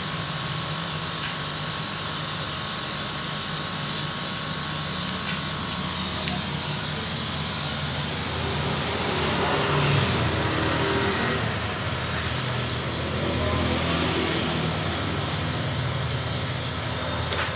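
A steady mechanical hum with a low drone and a few thin steady tones, swelling briefly about halfway through.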